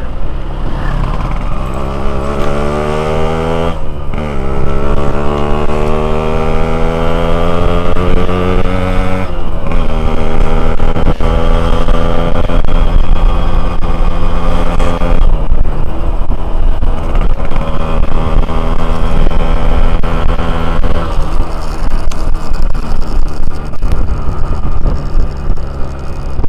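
Yamaha RX-King's stock two-stroke single-cylinder engine running under way as the motorcycle accelerates. Its pitch climbs and drops sharply about four and nine seconds in, as at gear changes. It then runs steadier, with a couple more brief dips.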